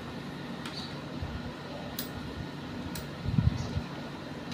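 A few sharp metal clicks as a T-handle spanner turns the bolts of a motorcycle's clutch assembly, with a louder low thump a little after three seconds in, over a steady background hum.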